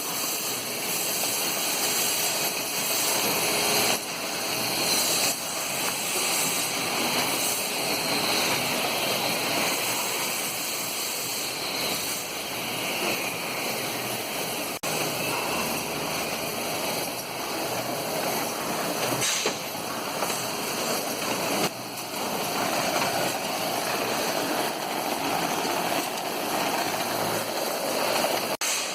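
Rotary screw air compressor running: a steady mechanical noise with air hiss and a few high steady tones, broken by a few brief drops in level.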